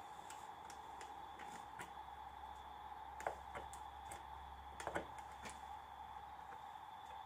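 Faint clicks and taps of test-lead probes touching metal terminals on a circuit breaker and a three-phase outlet, the two loudest about three and five seconds in, over a faint steady high whine.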